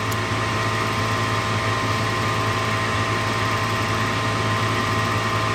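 Gas furnace draft inducer motor running steadily with a low hum and a whine of steady tones, on a call for heat.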